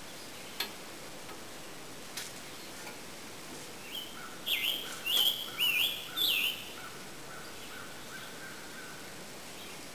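A songbird singing four loud, slurred notes in quick succession about halfway through, over a faint high note that repeats about twice a second. Two light clicks come in the first couple of seconds.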